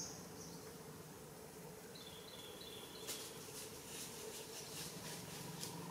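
Faint outdoor ambience: a steady low insect-like hum, with a short high chirp at the start, a thin high call about two seconds in, and light rustling crackles from about three seconds on.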